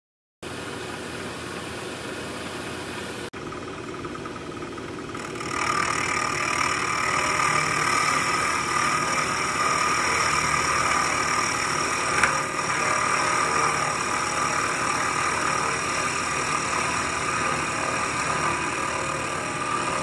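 Vertical milling machine running, its end mill cutting a metal workpiece with a steady whine that gets louder about five seconds in. There is a click about three seconds in and a brief sharp spike near the middle.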